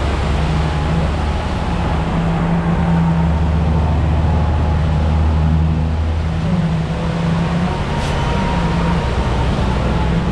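Concrete mixer truck's diesel engine running steadily with a low hum.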